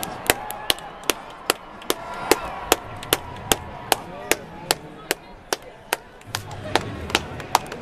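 One person clapping hands in a steady rhythm, about two and a half claps a second.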